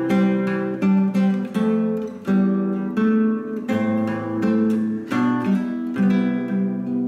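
Background music on acoustic guitar: plucked notes and chords, a new note or chord about every half second to a second, each left to ring.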